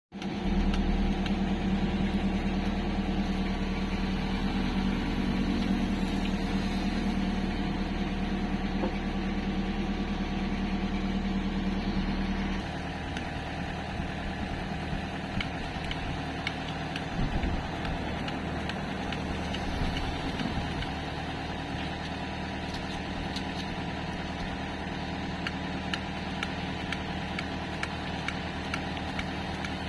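Hitachi excavator's diesel engine running steadily, dropping suddenly to a lower, quieter level about twelve seconds in.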